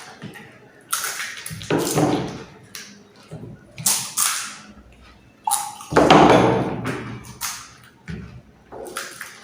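Pani puri being eaten close to the microphone: crunching of the crisp puri shells and slurping of the spiced water, in irregular bursts, the loudest about six seconds in.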